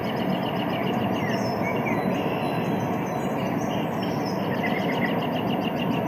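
Recorded train sound played from a white noise machine: a steady rumbling clatter with a rapid, even ticking rhythm, and a few bird chirps over it.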